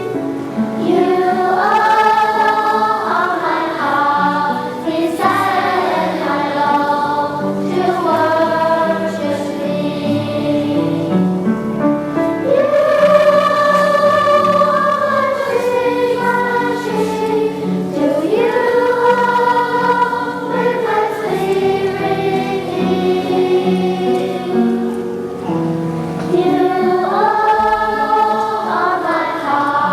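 A choir singing a slow song in several parts, with long held notes.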